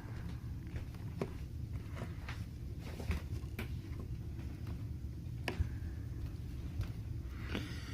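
Scattered light clicks and taps from hands handling a phone and small repair tools, over a steady low hum.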